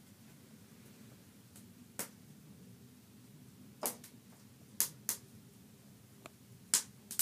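Wood fire in a cast-iron woodstove crackling: a few sharp, irregular pops over faint room tone, the loudest near the end.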